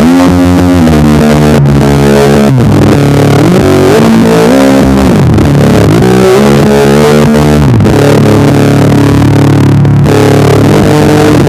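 Electric bass guitar through a Darkglass Microtubes B3K overdrive and an SMFR fuzz pedal, playing a slow, heavily distorted stoner/doom riff. Long held notes are joined by slides up and down the neck.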